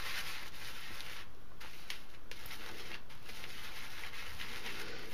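Edwin Jagger best badger shaving brush whisking shaving-soap lather in a wooden bowl: a steady soft swishing of bristles through the foam.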